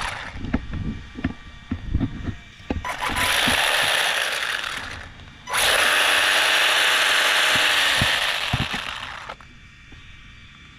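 The 380 brushed motor and gear train of an ARRMA Typhon Grom 1/18 buggy run up twice with the wheels off the ground: a loud, gritty mechanical whirr, a short burst about three seconds in and a longer one of about four seconds that dies away near the end. Clicks and knocks of the chassis being handled come first. The buggy has been losing power, which the owner puts down to a bad motor.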